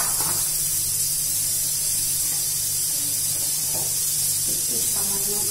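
Hot frying oil left in an aluminium wok, sizzling with a steady high hiss over a steady low hum.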